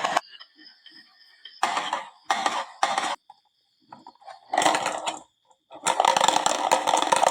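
Marbles rolling and clattering down a wooden marble run, in a series of rattling runs: three short ones in the first half, then a longer one and a sustained clatter from about six seconds in to the end.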